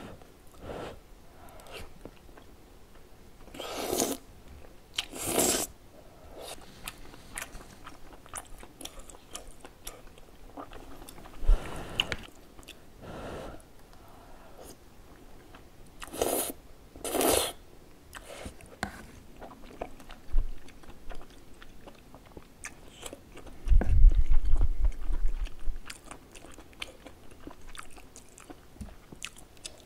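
Close-miked eating of tteokbokki with wide glass noodles and rice cakes: wet biting and chewing, with two pairs of louder bites about a second apart. Near the end, a low rumble lasting about two seconds.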